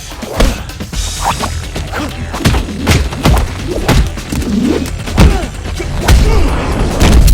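Rapid series of dubbed punch and kick impact sound effects, about ten sharp hits at uneven spacing, some with swishes, over a music score.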